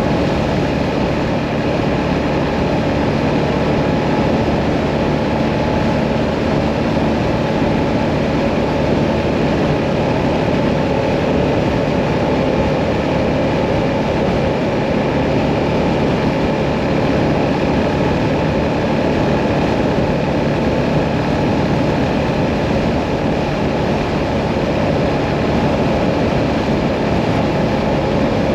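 Hyosung Mirage 650's V-twin engine running steadily at cruising speed, with a constant rush of wind and road noise.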